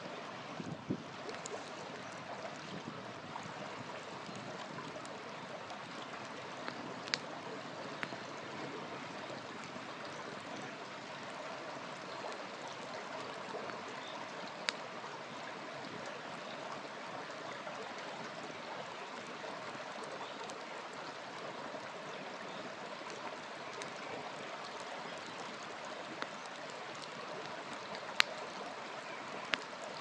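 Wood campfire burning: a steady rushing hiss with a few sharp pops of the burning wood, the loudest near the end.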